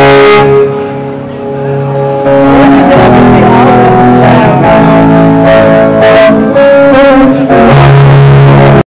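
Live rock band playing loud, with electric guitars and drums, heard from the audience. It drops back briefly about a second in, then the full band comes back in.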